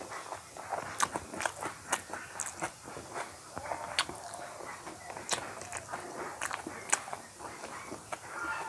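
Close-up eating sounds: chewing with wet mouth smacks and irregular sharp clicks, mixed with fingers working rice and curry on a steel plate.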